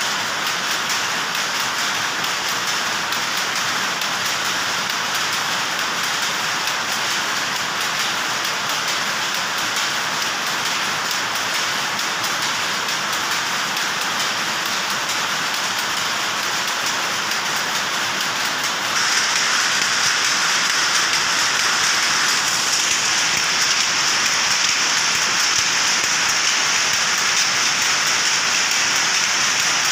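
Powerloom running: a dense, continuous, very rapid mechanical clatter that never lets up. It grows louder and brighter about two-thirds of the way through.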